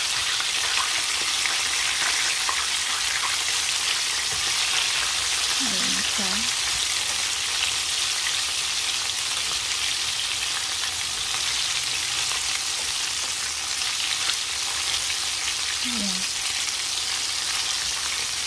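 Coated chicken pieces deep-frying in hot oil in a pan: a steady sizzle throughout.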